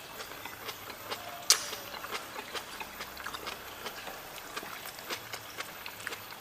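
Eating by hand: chewing and fingers picking at fried fish and rice on plates make an irregular run of small clicks and taps. One sharper click comes about a second and a half in.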